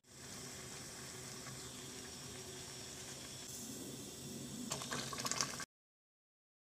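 Pot of lentil-and-beef haleem bubbling steadily at a simmer. Near the end a wooden spoon stirs it, with several quick scrapes and taps against the metal pot, and the sound cuts off suddenly.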